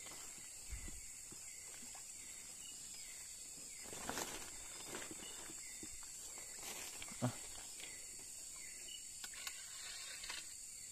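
Steady high-pitched chorus of night insects, with leaves rustling and a few soft knocks and steps as someone pushes through undergrowth; the loudest rustle comes about four seconds in.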